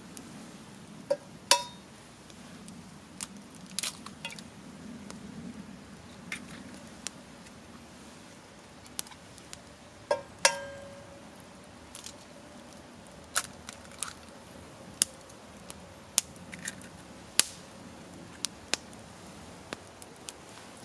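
Eggs knocked against the rim of a steel frying pan, twice in quick succession about a second in and again about ten seconds in, the pan ringing briefly after the second knock and for several seconds after the later one. Between them come sharp crackles and pops from a wood campfire.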